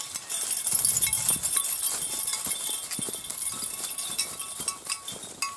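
Irregular footsteps on a trail, with light metallic jingling.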